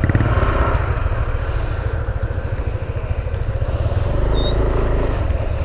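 Vehicle engine running steadily close by: a loud, low rumble with a fast, even pulse.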